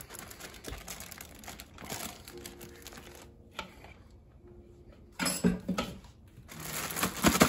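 A spatula scraping thick spice marinade out of a plastic mixing bowl into a zip-top plastic bag, with the bag crinkling. A couple of louder clunks come a little past the middle and again near the end.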